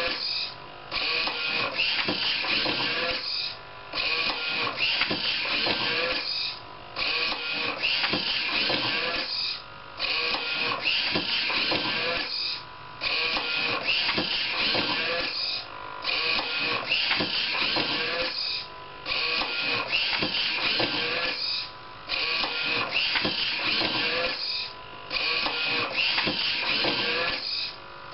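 DIY automatic book scanner's page-turning mechanism running, motor noise with a steady whine, broken by a short pause about every three seconds as each page-turn cycle repeats.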